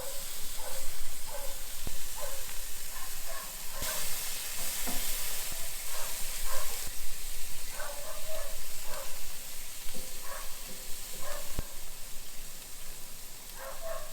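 Marinated chicken pieces sizzling as they are laid on the hot grate of a charcoal grill, with a few sharp clicks on the grate.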